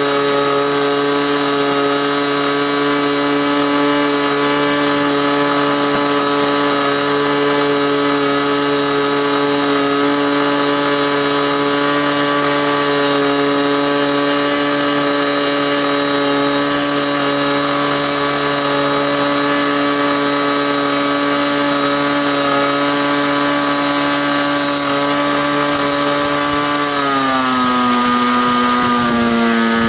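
Model airplane engine on a SIG Kadet LT-40 running on the ground during its break-in, steady on its freshly set needle valve. Near the end the pitch dips and then climbs back up.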